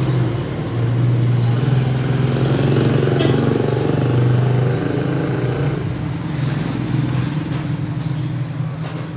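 An engine running steadily with a low, even hum, growing quieter over the last few seconds.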